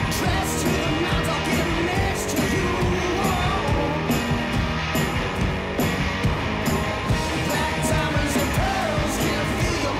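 Rock music with singing over a steady beat.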